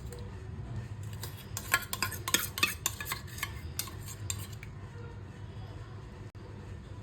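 Light clinks and clatters of small hard objects being handled, bunched together in the middle and then dying away, over a steady low hum.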